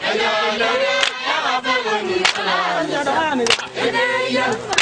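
Karamojong dancers singing a group chant for the Naleo love dance, several voices together. A sharp, clap-like beat comes about every second and a quarter.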